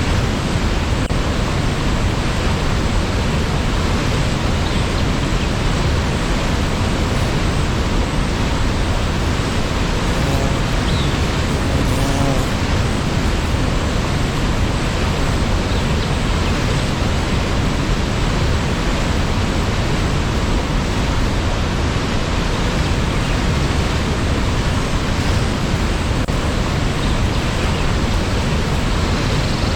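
Steady, loud rush of a waterfall, falling water making an even, unbroken roar.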